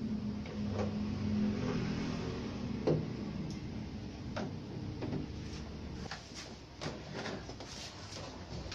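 Knocks and clicks of a CRT television's plastic back cabinet being handled and turned around, over a low steady hum that fades after the first couple of seconds.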